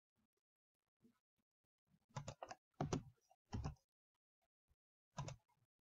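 Faint clicks and taps of a computer keyboard and mouse: a quick cluster of about four about two to four seconds in, and one more near the end.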